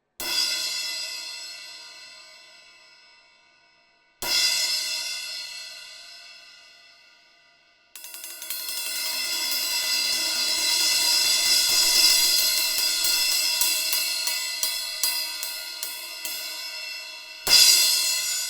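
Low-volume Zarcon Silent Set-E cymbal in NS10 alloy, struck once and left to ring and fade, then struck again about four seconds in. From about eight seconds a fast run of strokes builds into a swelling wash, thins into separate hits, and ends on a loud crash near the end.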